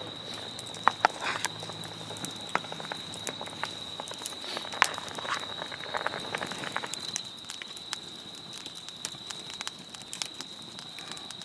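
Wood campfire crackling, with irregular sharp pops and snaps over a steady faint high-pitched tone.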